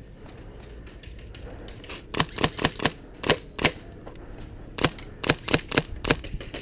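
Airsoft guns firing: two volleys of sharp, irregular pops, the first about two seconds in and the second near the end, roughly three to four shots a second.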